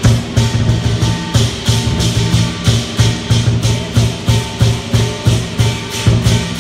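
Southern lion dance percussion: a large drum with clashing cymbals beating a steady, loud rhythm of about three strikes a second to accompany the dancing lion.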